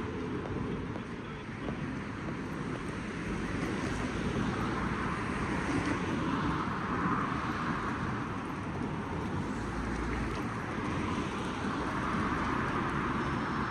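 City road traffic: a steady wash of tyre and engine noise that swells as vehicles pass, once about halfway through and again near the end.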